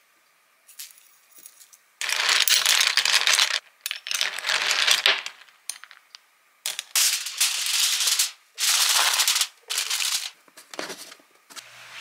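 Cockle shells clattering against one another and the glass bowl in several long spells of a second or more, as they are stirred by hand while being washed.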